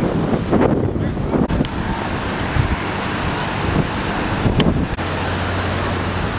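Wind noise on the microphone: a steady rushing haze, with a few voices in the first second or so and a low steady hum coming in near the end.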